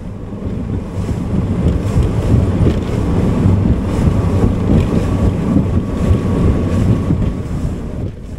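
Bass boat running at speed: a steady low drone from the outboard and hull, with heavy wind buffeting on the microphone, easing off near the end.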